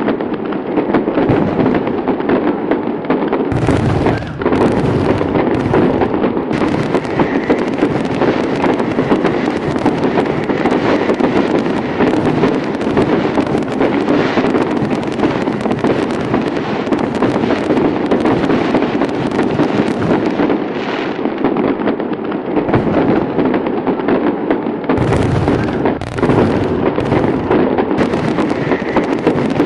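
Fireworks display going off in a dense, continuous barrage of bangs and crackling, with no break except a brief dip about four seconds in.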